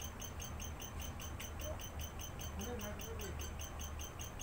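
Regular high-pitched chirping, about four chirps a second, over a steady low hum, with a faint voice briefly near the middle.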